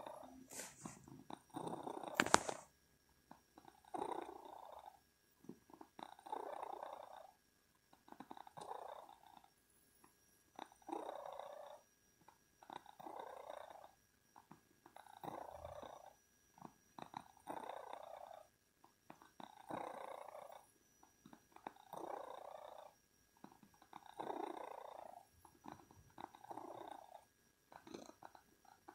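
Domestic cat purring, in slow rhythmic swells about every two seconds. A brief sharp knock about two seconds in.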